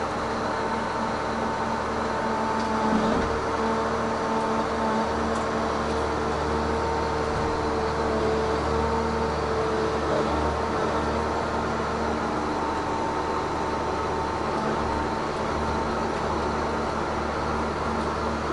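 Tigercat 1075B forwarder's diesel engine and hydraulic crane running steadily, heard from inside the cab, with whining tones that strengthen and fade as the crane works and a faint knock about three seconds in.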